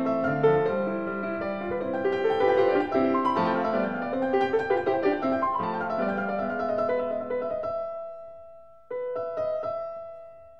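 Background piano music: a melody of quick notes, then a held chord fading away, and a new chord struck about nine seconds in that also fades.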